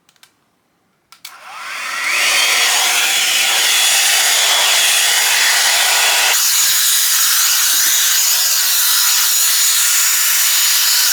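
Drybar hair dryer switched on with a click about a second in, its motor whining up to speed and then blowing steadily on the first setting. About six seconds in, the lower part of its sound drops away and it runs on thinner.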